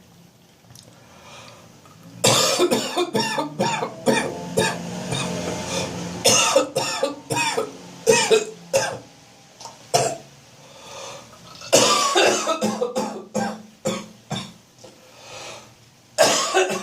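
A person's chesty, phlegmy cough: morning coughing fits and throat clearing to bring up built-up phlegm. The fits begin about two seconds in as clusters of sharp, harsh coughs, break off briefly around ten seconds, and start again.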